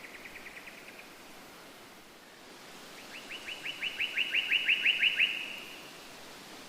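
A songbird singing trills: a run of quick repeated notes that ends about a second in, then a louder trill of about a dozen quick down-slurred notes, building in loudness, from about three to five and a half seconds in.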